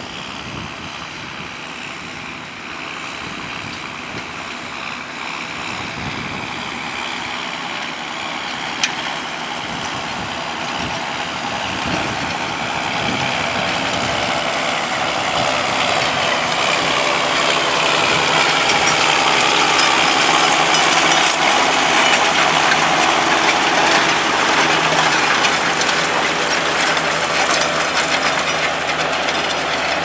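Tractor engines working hard under ploughing load. The John Deere 6620 pulling a reversible plough grows steadily louder as it draws near, with one short click about nine seconds in.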